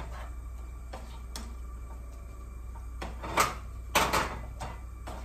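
Plastic slotted spatula scraping and knocking against a frying pan while stirring shrimp in curry sauce: a few light strokes, the two loudest about three and four seconds in.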